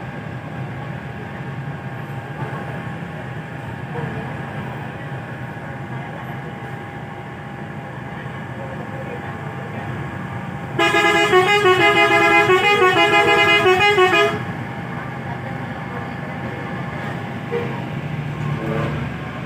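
Bus telolet horn playing a short tune of several tones stepping up and down, for about three and a half seconds about halfway through, loud over a steady low rumble of engines and traffic.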